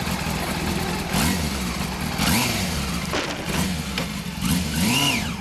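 Yamaha FZ400 (Fazer 400) inline-four motorcycle engine, fitted with a Leo Vince L SBK aftermarket muffler, idling while the throttle is blipped repeatedly, the revs rising and falling about once a second.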